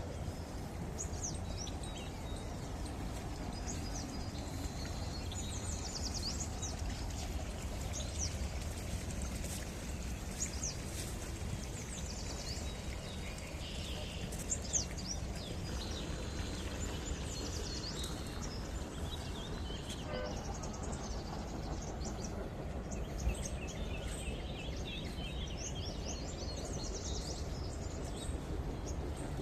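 Several birds chirping, many short high calls coming in scattered bursts throughout, over a steady low background rumble.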